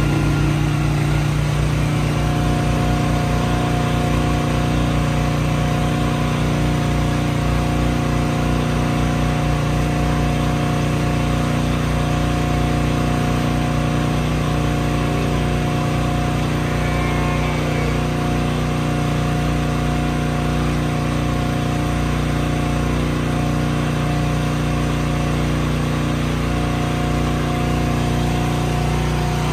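Motorized feed cart's motor running steadily as the cart moves along a feed alley, a constant mechanical hum with a low, fast pulsing.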